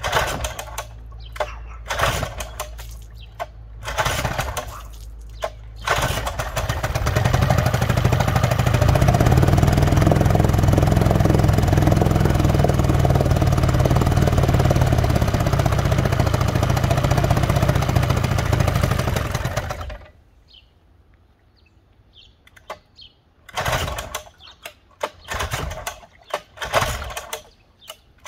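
Vintage two-stroke outboard motor, its lower unit in a water-filled trash can, catching about six seconds in, running steadily for about fourteen seconds, then cutting off suddenly. Scattered knocks and clicks before it starts and after it stops.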